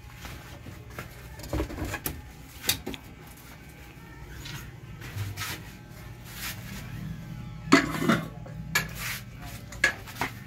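Stainless steel dog bowl clinking and knocking as it is handled and set down on a tiled floor: a scattered series of sharp clinks, the loudest cluster about eight seconds in.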